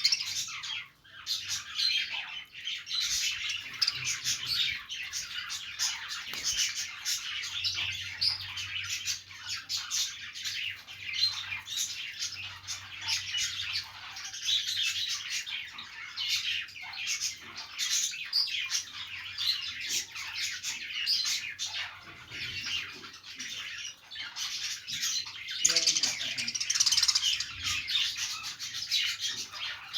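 Budgerigars chattering and chirping nonstop, many quick warbling calls overlapping, with a few louder squawks; the chatter swells a little near the end.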